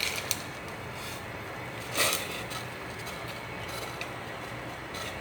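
Steady hiss of a pot of soup heating on the stove, just after choy sum has been added, with a few short clicks and knocks; the loudest knock comes about two seconds in.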